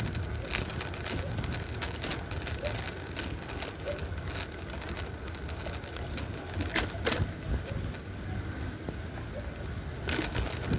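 Motorcycle engine running steadily while riding, mixed with wind on the microphone. Two sharp knocks come about two-thirds of the way in.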